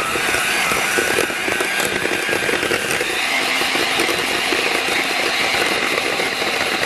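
Electric hand mixer running steadily at speed, its beaters whirring through cake-like batter in a glass bowl.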